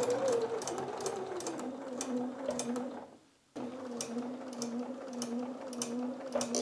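Bernina sewing machine stitching a seam: a steady motor hum with a regular clatter of the stitching mechanism. The motor's pitch drops over the first two seconds, and the machine stops briefly about three seconds in before running again.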